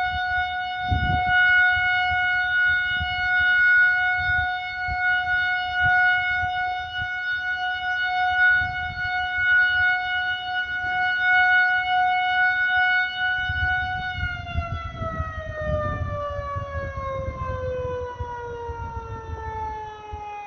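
Dam warning siren sounding: a steady held tone for about fourteen seconds, then a long fall in pitch as it winds down. The siren signals that the dam is raising its water release.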